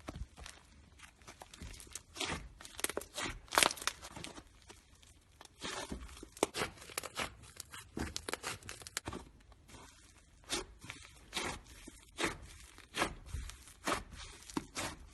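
Slime being squished and stretched, giving an irregular string of sharp crackling pops and clicks.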